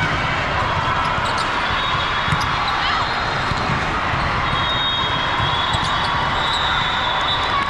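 Volleyball match in a gym: scattered ball thuds and knocks over a steady crowd murmur, with one sharper hit a little past two seconds in.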